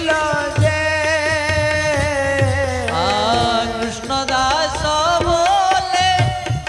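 Devotional kirtan music: a long held, wavering sung note over instrumental accompaniment, with drums keeping a steady beat.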